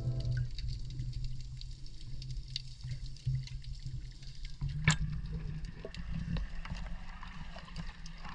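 Water lapping and gurgling over a low steady rumble, with faint scattered ticks and one sharper click about five seconds in.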